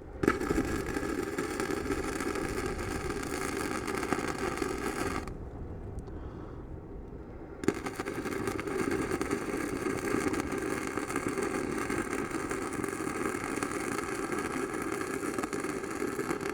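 Electric arc welding: the arc crackles steadily in two runs, stopping about five seconds in and striking again about two seconds later.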